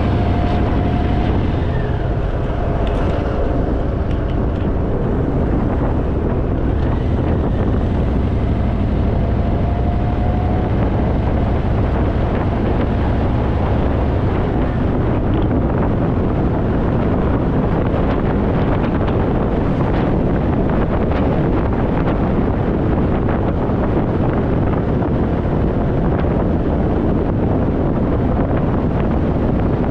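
Wind rushing over the microphone while riding a Harley-Davidson Fat Boy motorcycle at road speed, with its V-twin engine running steadily underneath.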